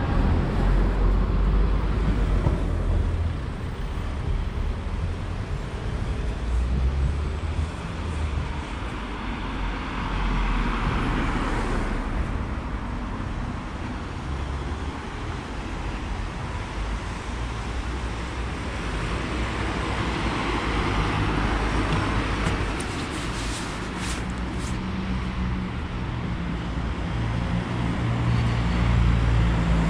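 Street traffic: cars passing one after another, with tyre noise swelling about ten and twenty seconds in and low engine rumble at the start and near the end.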